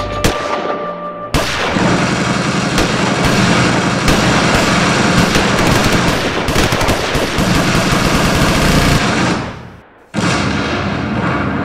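Rapid, continuous gunfire like a machine-gun burst, starting about a second in and dying away near the tenth second, then starting again a little quieter.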